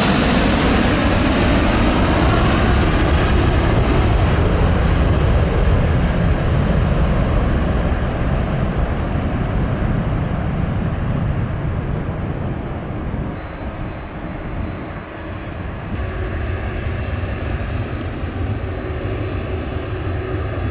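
Boeing 747 jet engines passing close by, a loud rumble with a high whine that falls in pitch and fades away over several seconds. Near the end a quieter steady engine hum and faint whine remain.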